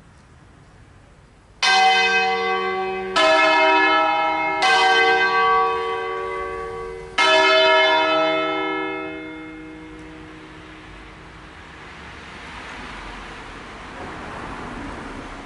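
Church bells from a ring of six cast by Crespi of Crema in 1885, tuned in D-flat, sounding a slow funeral peal. Four strikes on different bells come about a second and a half apart, the last after a longer gap, each ringing on and fading out over a few seconds.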